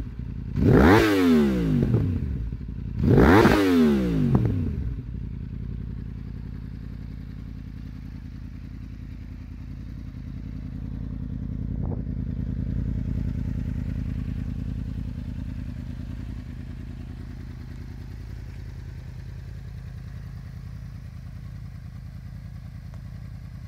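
Yamaha R1 inline-four with an Akrapovic carbon slip-on exhaust, stationary, blipped twice in the first few seconds, each rev jumping up and falling quickly back. It then settles into a steady idle that grows slightly louder around the middle.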